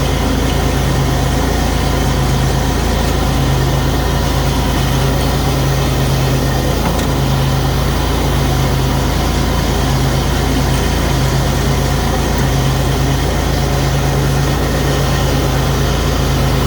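Bad Boy zero-turn mower's 23 hp Briggs & Stratton Vanguard engine running steadily with the blades engaged, cutting tall grass with the deck set low.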